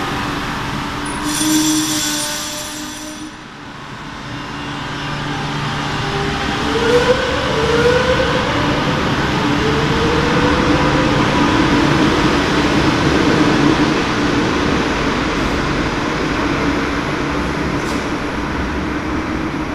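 Madrid Metro Serie 8400 electric train running along the platform, its motors whining in rising and falling pitch sweeps over a steady rumble. A brief high shrill tone sounds about one and a half seconds in.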